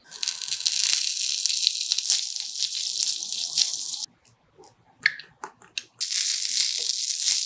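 Diced bacon sizzling as it hits hot oil in a miniature cast-iron skillet. The hiss is loud and stops abruptly about four seconds in. After a few small clicks and taps, sizzling in the skillet starts again about six seconds in.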